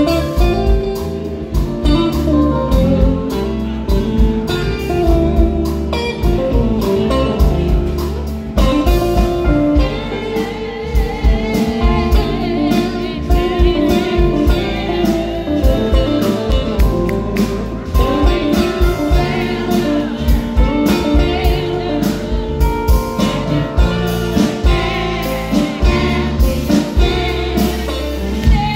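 A live band playing a blues-gospel style song: a singer over guitar with a steady beat.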